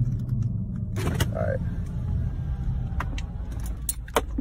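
Steady low rumble with a short voice-like call about a second in, and sharp clicks near the end.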